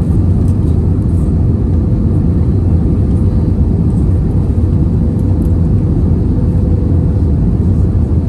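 Steady low rumble inside an Airbus A320 passenger cabin in flight: engine and airflow noise heard at a window seat, with a faint steady hum running through it.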